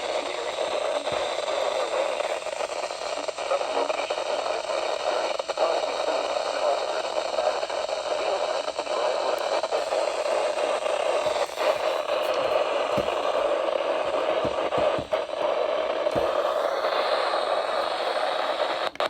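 Weather radio receiver giving a steady hiss of static while tuned to a weak, distant NOAA Weather Radio station, with a few faint clicks in the second half.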